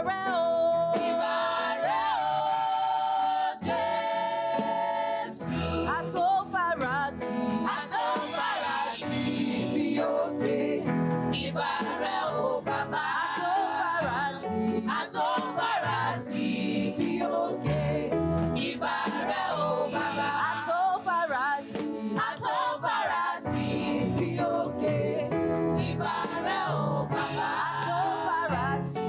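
Women's choir singing a gospel worship song over instrumental backing, with a steady bass line and drums.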